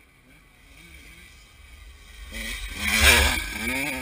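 Dirt bike engine, low at first, then revving up to a loud peak about three seconds in with a wavering pitch, and settling to a steady run near the end.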